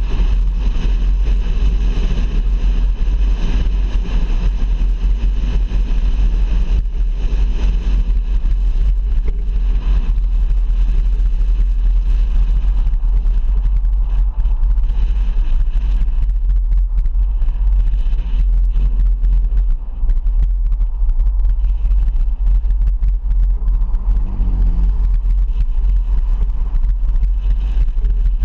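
Steady road and wind noise of a car driving on a highway, dominated by a deep low rumble. Near the end a tone falls in pitch.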